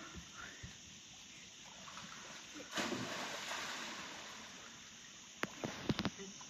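A child jumping into a swimming pool: a splash about three seconds in, followed by a fading wash of splashing water as he swims. A few sharp knocks come near the end.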